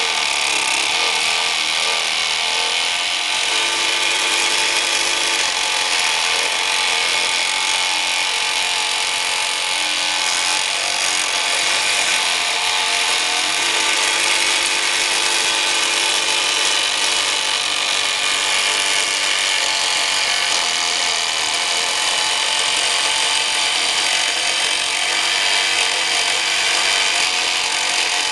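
Small tabletop craft jigsaw (a scroll saw) running steadily, its reciprocating blade sawing through thin wood with an even, high buzz.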